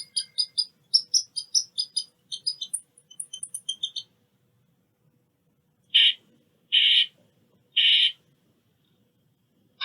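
Squirrel calling in alarm: a fast run of short, high chips, about four or five a second, then after a pause three longer, harsh calls about a second apart.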